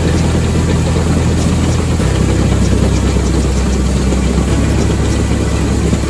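Barley grain pouring in a steady stream into a grain auger's hopper, a dense rushing hiss over the steady running of a tractor engine.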